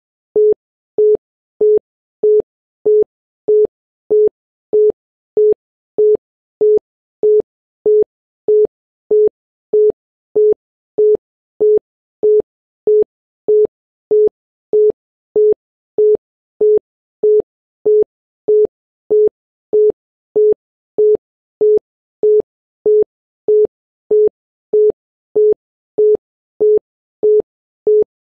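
Obsolete German telephone busy tone (busy B): short beeps of a single steady tone of about 450 Hz, 0.15 s on and 0.475 s off, repeating evenly at about 1.6 beeps a second. It tells the caller that the called line is busy.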